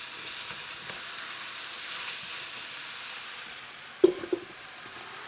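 Flour-coated beef stew meat sizzling steadily in a non-stick ceramic frying pan, with two short sharp knocks about four seconds in.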